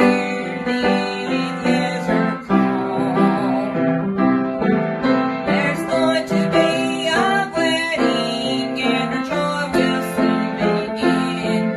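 Piano playing a steady chordal accompaniment to a hymn-style tune, with regular chord changes.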